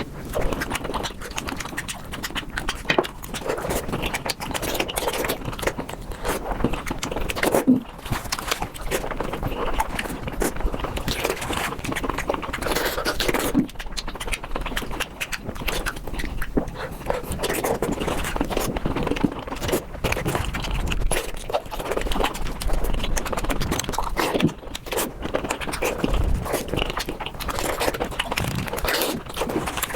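Eating bamboo shoots close to the microphone, played fast: a dense, unbroken run of quick crunches, chewing and mouth noises.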